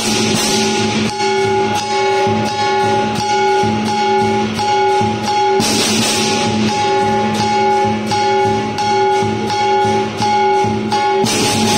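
Southern lion dance percussion, with large hand cymbals clashing and gongs ringing in a steady driving rhythm of about three beats a second. There are stretches of dense cymbal crashing in the first second, about six seconds in, and again near the end.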